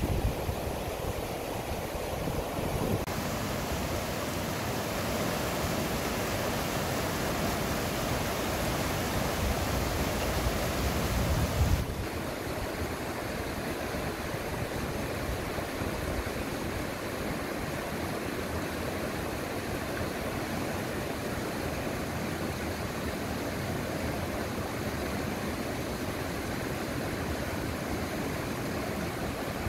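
Rushing water of a small mountain river: a steady noise of flowing water. The sound shifts abruptly about three seconds in, and again about twelve seconds in, where a low rumble drops away.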